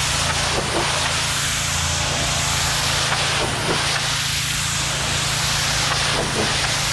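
Pressure washer spraying a fan jet of water from a wand against a brick wall: a steady hiss of spray with a steady low hum of the machine beneath.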